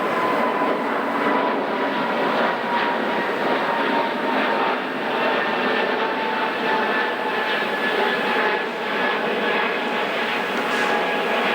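Aircraft passing, a steady engine rush with a whine that slowly falls in pitch.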